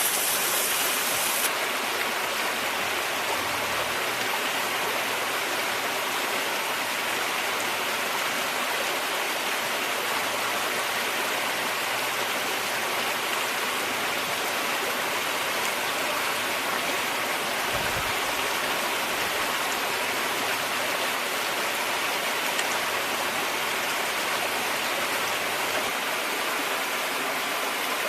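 Pork belly rolls sizzling steadily in a pan over a campfire, an even frying hiss.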